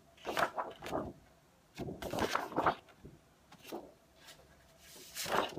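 Sheets of 12-by-12 patterned scrapbook paper rustling as they are lifted, flipped and set down, in several separate spells with short quiet gaps between.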